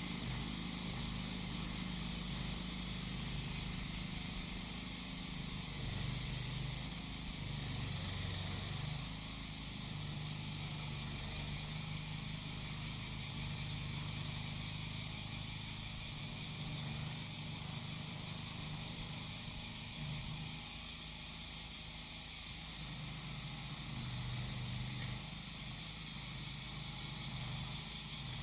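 Cicadas singing in a dense, continuous high chorus, over the steady running of a grass-cutting machine's small engine whose pitch shifts up and down with the throttle.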